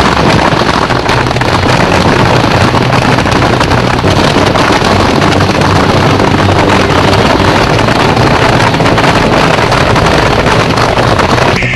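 Ground fountain fireworks (gerbs) spraying sparks, heard as a loud continuous rushing hiss thick with fine crackling.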